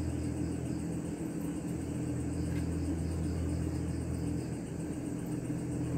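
A steady, low mechanical hum, as of a running motor, holding level throughout, with insects chirping faintly behind it.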